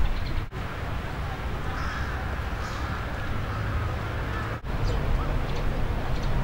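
Outdoor park ambience: a steady low rumble with birds chirping a few times in the second half and faint distant voices. The sound drops out for an instant twice where the recording is cut.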